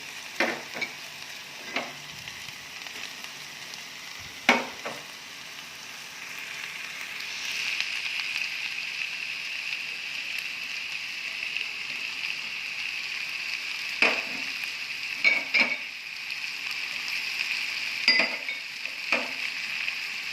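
Chicken and vegetables stir-frying in hot oil in a pan, a steady sizzle that grows louder about seven seconds in. A spatula stirs and knocks against the pan several times.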